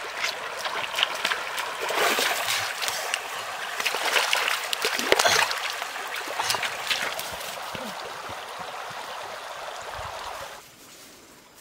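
Shallow stream water running over stones, with splashing from bare feet and hands working in the water, loudest about two seconds in and again around four to five seconds in. The water sound cuts off abruptly near the end, leaving a much quieter background.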